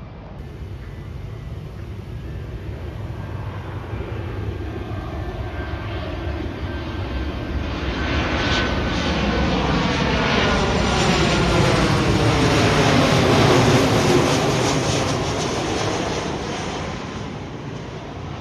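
Jet airliner passing overhead: its engine noise swells steadily for about thirteen seconds, peaks, then fades, with a sweeping, phasing sound as it goes over.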